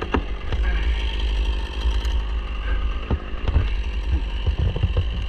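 An engine idling steadily under the talk-free stretch, with a few sharp knocks and clicks scattered through it.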